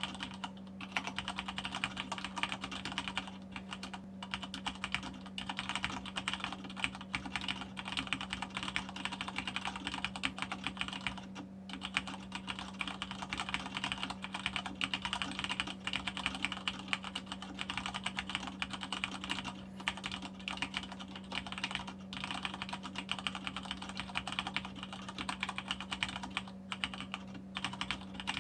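Fast, continuous typing on a Deck 82 mechanical keyboard with Cherry MX Black linear switches: a dense run of key clacks, with a short pause about eleven seconds in and another near the end.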